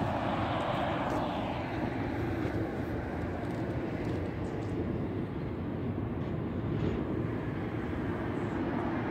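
Passing road traffic: a vehicle going by fades away over the first second or so, leaving a steady background rumble.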